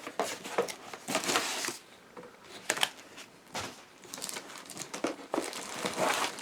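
Packaging being handled while a new electric kettle is unboxed: irregular crinkling and rustling, with a few sharp clicks, and a quieter moment about two seconds in.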